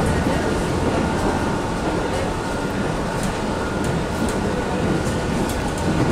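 Steady running noise inside the passenger car of an Alstom X'Trapolis Modular electric multiple unit: a dense low rumble from the wheels and running gear, with a faint steady high whine that comes in just after the start.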